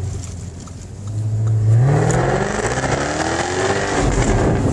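Jaguar F-Type V8 S's supercharged V8 accelerating hard under full throttle, heard from inside the cabin: the engine note rises steadily in pitch and grows loud, then breaks off into a rougher sound near the end.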